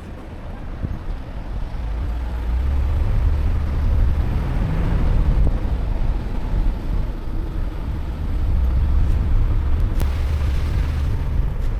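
4WD vehicle driving, a steady low engine and road rumble that grows louder about two seconds in, with a single sharp click near the end.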